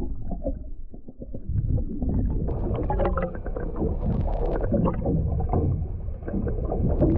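Muffled underwater sound from a submerged camera: a low rumble of moving water with many scattered crackling clicks.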